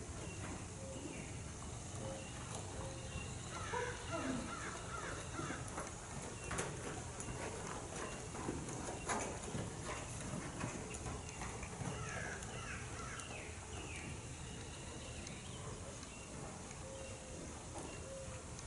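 Hoofbeats of a ridden horse moving at trot and canter over the soft sand footing of a covered riding arena, with short chirping calls in the background.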